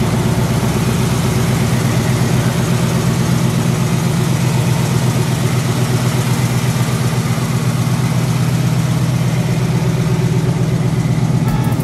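Ford F100 pickup's V8 idling steadily with the hood up, an even low rumble that holds the same level throughout.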